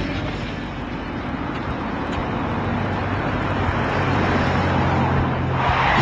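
Car driving: a steady engine hum with road noise, and a louder rush of noise near the end.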